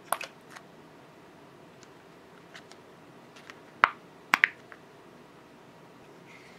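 Thin plastic molds and trays clicking and tapping as molded tofu is unmolded: a couple of clicks right at the start, a few faint ticks, then three sharp clicks around four seconds in.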